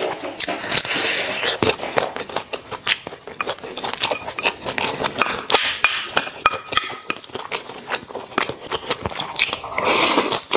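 Close-miked eating: wet chewing with many small clicks, and a wooden spoon clicking against a glass bowl. There is a longer slurp about a second in and another near the end.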